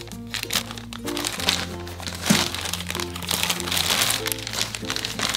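Plastic courier mailer bag crinkling and crackling as it is cut open with scissors and the contents are pulled out, over steady background music.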